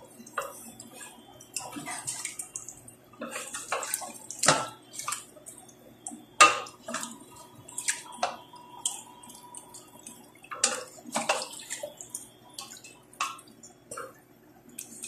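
Wooden spatula stirring pork chunks coated in tomato sauce in a stainless steel pot: wet squelching with irregular knocks of the spatula against the pot.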